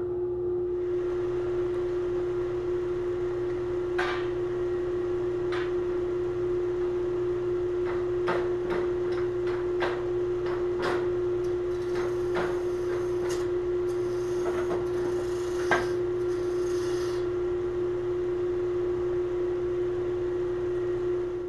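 Wood lathe running with a steady motor hum while a very sharp 3/8-inch gouge cuts a maple turning, giving intermittent scraping and hissing cuts as shavings come off, busiest over the middle stretch.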